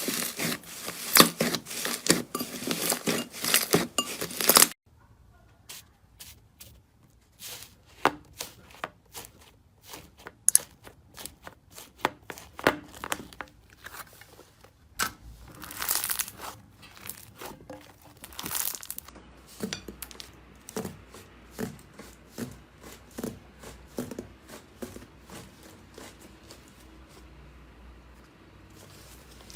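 Slime being handled and pressed, crackling and popping with many sharp little clicks. A dense run of crackles stops abruptly about five seconds in, followed by sparser clicks, pops and soft squishes.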